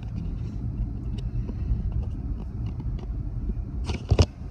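Steady low road and engine rumble heard inside a moving car's cabin, with two sharp clicks close together about four seconds in.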